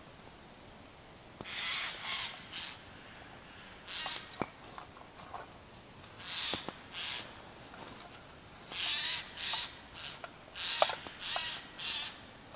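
Eurasian jays giving harsh, rasping screeches, short calls in clusters of two to four, repeated over and over. A few sharp snaps from the campfire, one loud one near the end.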